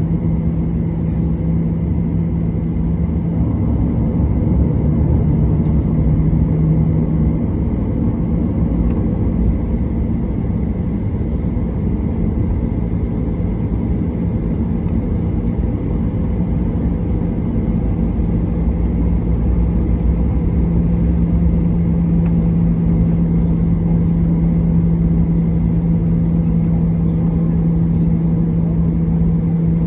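Boeing 737-800's CFM56 turbofan engines running steadily at taxi power, heard from inside the cabin as a steady hum over a rumble.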